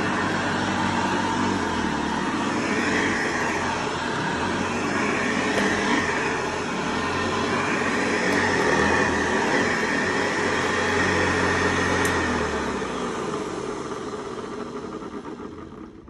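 1962 Hoover Convertible Model 68 upright vacuum cleaner running on shag carpet, its steady hum shifting as it is pushed back and forth. Near the end the sound fades away steadily, as the motor winds down.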